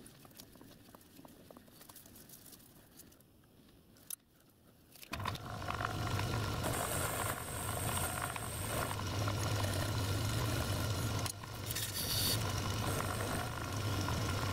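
Quiet handling of a metal lathe's chuck and chuck key with a single click, then the lathe motor starts about five seconds in and runs steadily with a low hum. A turning tool cuts the spinning metal locomotive wheel, adding a hissing cutting noise in stretches.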